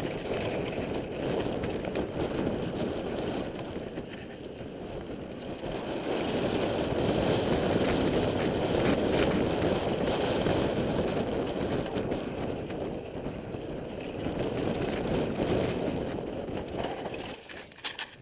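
Mountain bike (a 2006 Mongoose Black Diamond) riding down a dry dirt trail: a continuous rough rumble of tyres over dirt and rocks, with the bike rattling. It is louder in the middle stretch, and a few sharp clacks come near the end.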